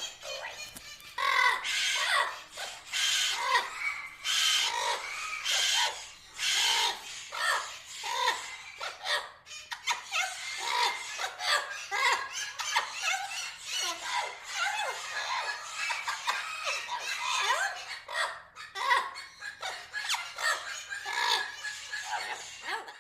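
A flock of parrots calling over one another: a dense, unbroken run of short squawks and chattering calls.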